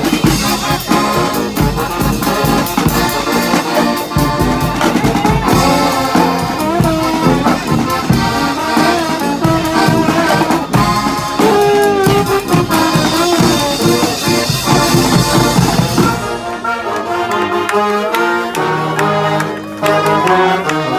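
Live brass street band with accordion playing a tune: trombones and trumpets over a steady percussion beat. About sixteen seconds in the percussion stops and the horns carry on more softly.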